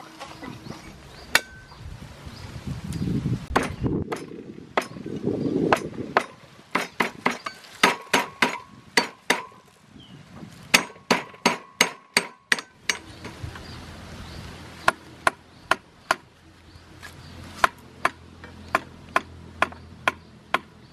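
Cleaver blade striking lemongrass stalks on a thick wooden chopping board: a long series of sharp knocks, some in quick runs of two or three a second, others more spaced.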